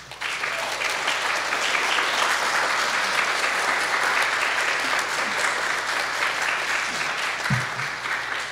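Audience applauding. It starts suddenly, holds steady, and thins out near the end.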